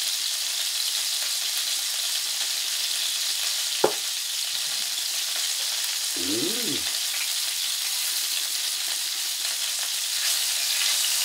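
Pork offal (horumon) frying on a grill pan with a steady sizzle in its own fat. A single sharp click comes about four seconds in.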